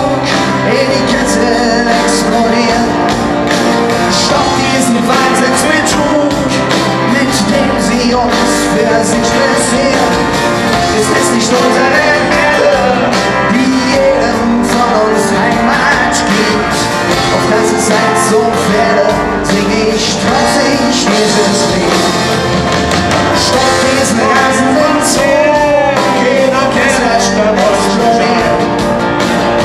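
Live band playing a rock song: a man singing over strummed acoustic guitars and drums.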